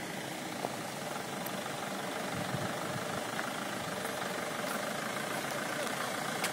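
A Mahindra Bolero SUV's diesel engine idling steadily, under an even hiss.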